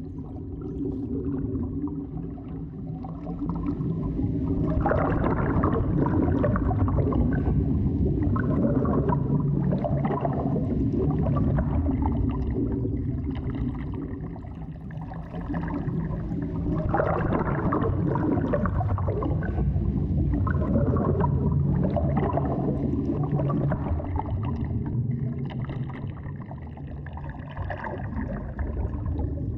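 Ambient underwater-style soundtrack bed: a low steady drone that swells up about five seconds in, eases off around the middle and swells again soon after.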